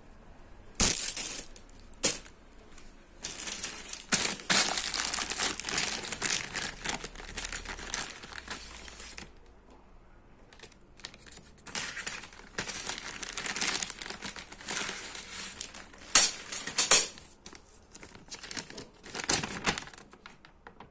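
Plastic packaging crinkling and rustling in irregular stretches as it is handled and pulled open, with a brief pause in the middle and a few sharp clacks about a second in and near 16–17 seconds.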